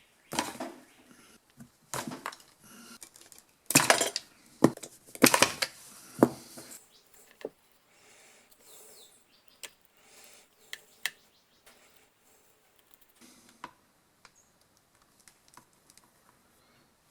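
Hand tools and electrical wire being handled while splicing a power cord: a cluster of clinks, clicks and rustles in the first several seconds, then only sparse faint ticks.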